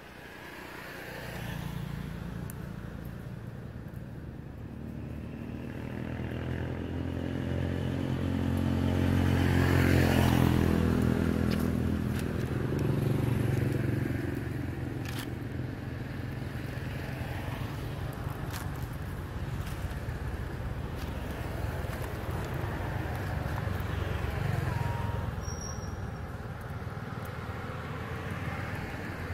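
Engine of a passing motor vehicle, growing louder to its peak about ten seconds in, then running on more quietly with another swell near the end.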